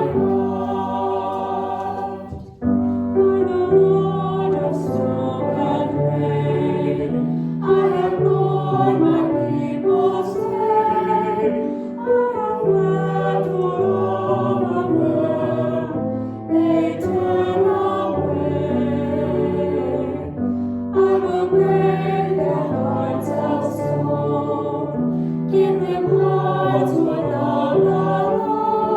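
Choir singing a hymn, sustained sung notes moving phrase by phrase, with a brief break between phrases about two and a half seconds in.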